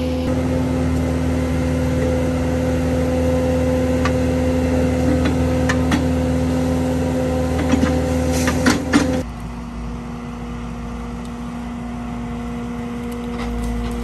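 Bobcat T650 skid steer's diesel engine running under load, with a steady hum, while its hydraulic 15C auger with a rock head drills into rock. A few sharp knocks come about eight to nine seconds in as the spinning auger is lifted out of the hole. The engine then drops abruptly to a lower, more distant running sound.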